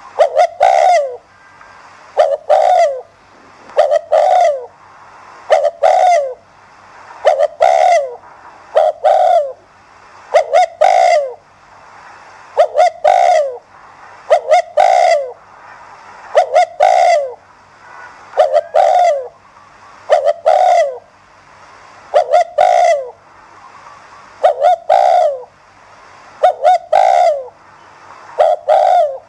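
Spotted dove cooing, one phrase about every two seconds: each phrase a few short quick notes ending in a longer falling coo.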